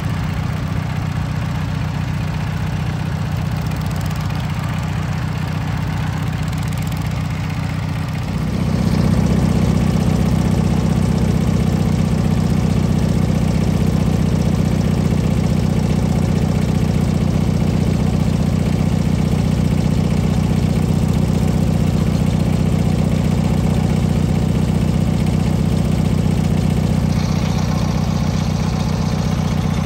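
Small garden tractor engine running steadily, its hum growing louder and fuller about eight seconds in and holding there.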